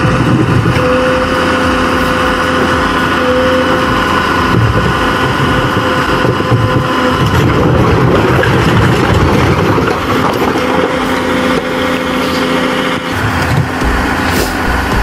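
Diesel engine of a tracked forestry forwarder loaded with logs, running steadily with a constant hum and whine.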